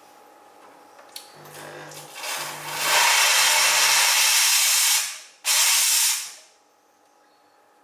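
Steam wand of a WPM Welhome Pro KD-270S espresso machine being purged into a cloth after frothing milk. A low hum comes in as the steam valve opens, and the steam hiss builds to a loud rush for about two seconds, then cuts off. A second short burst of steam follows about half a second later.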